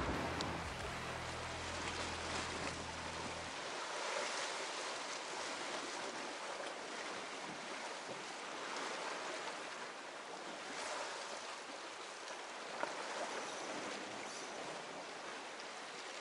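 Sea surf washing on a rocky shore, a steady hiss of water. For the first few seconds wind rumbles on the microphone, then stops abruptly.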